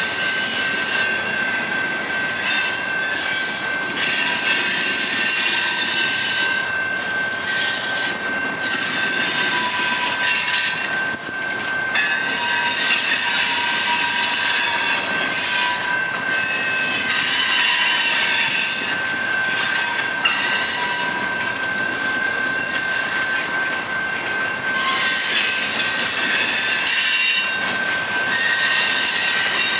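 A CN freight train's tank cars and covered hopper cars rolling past close by, with a steady rumble and rattle of wheels on rail. A steady high-pitched squeal rides over it the whole time, with a second, lower squeal coming and going.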